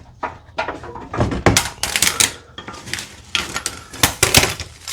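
Irregular metallic clanks, clicks and knocks from steel tools and car parts being handled and set down while a motor mount is fitted back in. There are a dozen or so sharp strikes, some ringing briefly.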